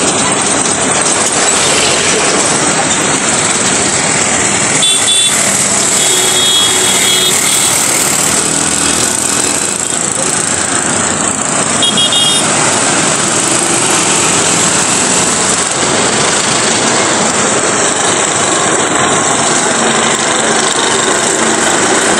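Loud, steady noise of road traffic passing close by. Vehicle horns give high-pitched toots: a short one about five seconds in, a longer one a second later, and another short one about twelve seconds in.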